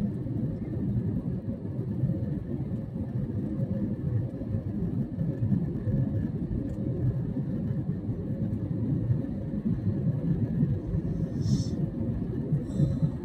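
Airliner cabin noise in flight: a steady low rumble of engines and airflow, with two brief high-pitched sounds near the end.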